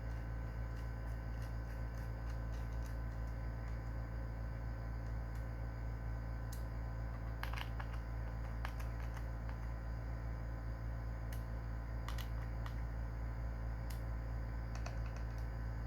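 Steady low electrical hum with scattered faint, short clicks and ticks, a few clustered together.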